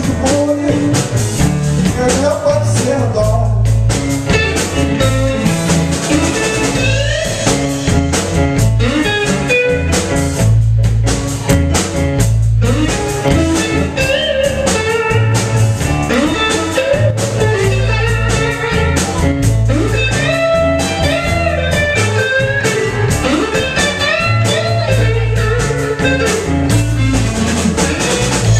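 Live blues band playing an instrumental passage: electric guitar playing lead lines with bent notes over bass guitar and a drum kit.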